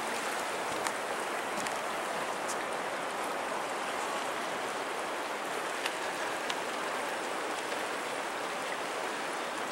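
Choppy river water splashing around a small fishing boat, a steady even hiss with a few faint ticks.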